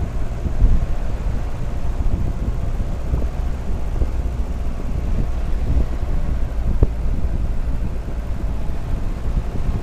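Jeep Cherokee XJ engine running steadily under load as the vehicle climbs a rutted dirt track: a low rumble with a few short thumps.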